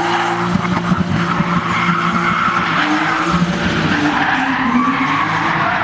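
Drift car sliding sideways with its tyres squealing, the engine's pitch rising and falling with the throttle.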